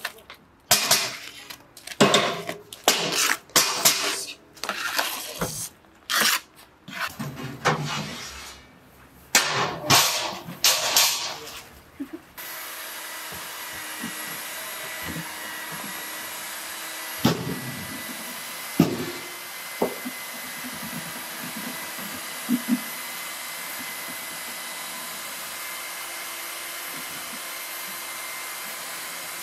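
A steel trowel scraping level the wet foam concrete in a block mould, a quick run of irregular strokes. About twelve seconds in, this gives way to a steady machine hiss with a faint whine, broken by a few sharp clicks and soft scrapes.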